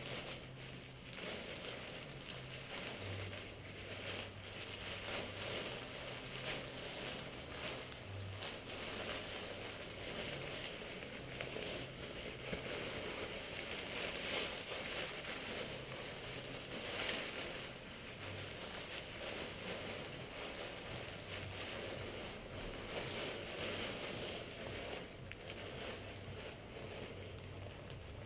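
Nylon parachute canopy fabric rustling as it is gathered and folded by hand, in uneven swells.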